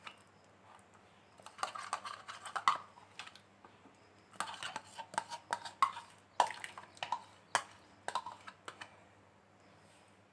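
Spoon clinking and scraping against kitchenware in irregular clusters of quick taps as dissolved milk powder is added to warm milk and stirred in. There is a pause in the clinking about three seconds in.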